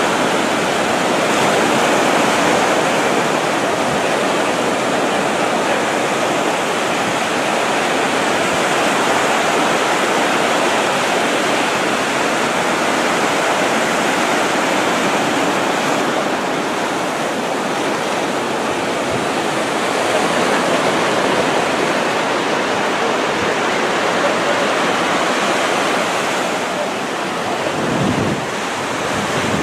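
Ocean surf washing onto the beach, a steady wash of noise, with a brief low rumble near the end.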